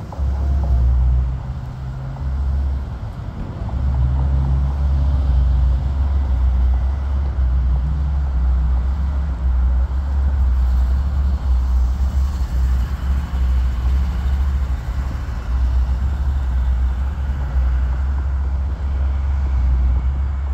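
Twin-engine jet airliner flying overhead, its engines a loud, deep rumbling roar that carries on without a break, the lowest rumble cutting in and out.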